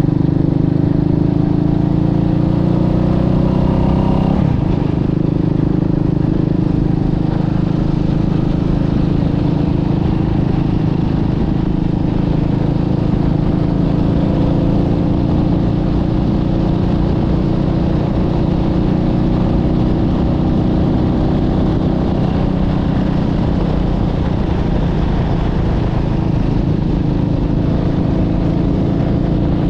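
Motorcycle engine running under way on a ride. It climbs in pitch for about four seconds, then drops sharply as on an upshift and holds steady, with a low rumble of wind and road noise underneath.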